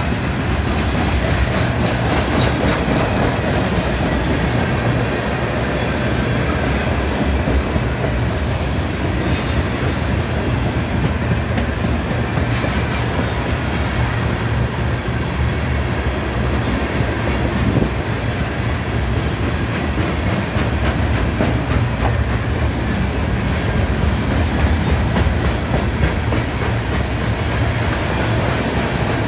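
Freight train's hopper and tank cars rolling past: a loud, steady rumble of steel wheels on the rails, with clickety-clack clicking from the wheels going over the track throughout.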